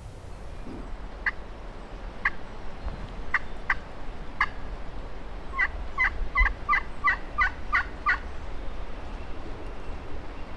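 Turkey yelps: a few single notes spaced about a second apart, then a quicker run of about nine notes, three to four a second, a little past halfway.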